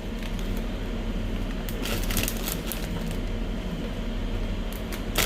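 Air fryer running with a steady fan hum, with a few brief rustles of handling about two seconds in and near the end.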